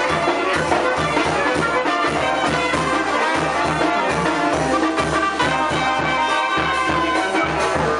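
Background music with brass and a steady, evenly pulsing bass beat.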